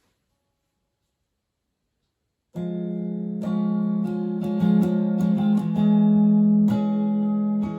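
Near silence, then about two and a half seconds in an electric guitar starts playing strummed chords, the intro to a song.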